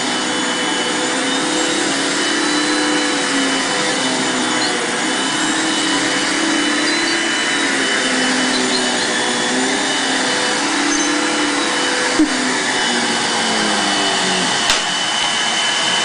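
Upright vacuum cleaner running steadily on carpet: a continuous whooshing hiss with a steady motor whine and a lower tone that wavers up and down beneath it. Two short sharp clicks come in the last few seconds.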